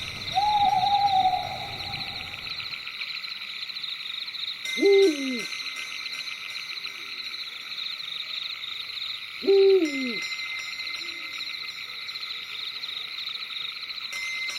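Owl hooting over a steady high-pitched chirring night chorus. There is one held call about half a second in, then two short calls that drop steeply in pitch, about five seconds apart.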